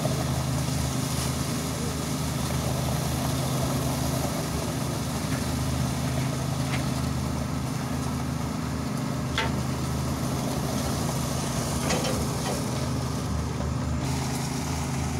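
Hitachi excavator's diesel engine running steadily as it holds a bucket of concrete over a trench for a pour. A few faint clicks sound about seven, nine and twelve seconds in.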